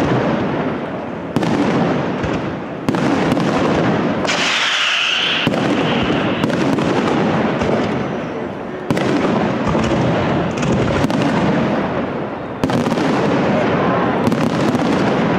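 Aerial firework shells bursting in a dense barrage: a continuous rumble and crackle, broken by a handful of sudden loud reports a second or a few seconds apart.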